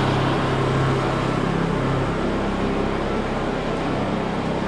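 Two Honda portable generators running steadily, warming their engines on a last splash of fuel before an oil change. Their deepest hum eases about two seconds in.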